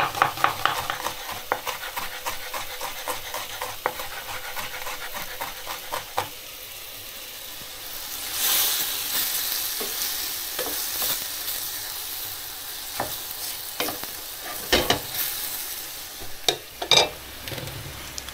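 A knife chops onion on a wooden cutting board in a run of quick taps for the first few seconds, over the sizzle of pork and bacon frying in a pan. From about eight seconds in the meat is stirred in the pan and the sizzling grows louder, with a few knocks near the end.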